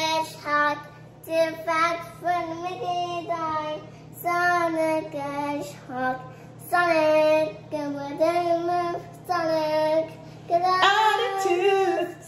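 A young girl singing a song unaccompanied, in a string of held notes with short breaks between phrases.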